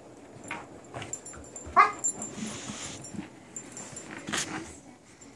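Corgi puppy giving a short high-pitched cry about two seconds in, with a second sharp sound later, while scuffling and nosing at a rugby ball on carpet.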